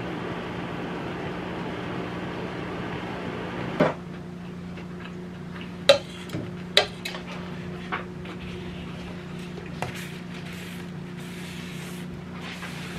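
Metal cake spatula working buttercream, with several sharp clinks against a stainless steel bowl and soft scraping of frosting, over a steady low hum.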